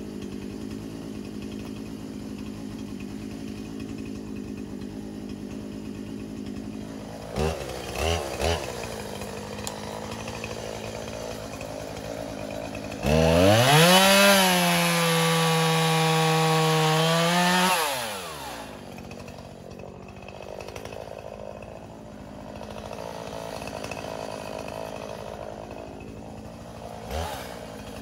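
Gas chainsaw idling, blipped three times, then held at full throttle for about five seconds while cutting limbs off a log, before dropping back to idle. It revs up again right at the end.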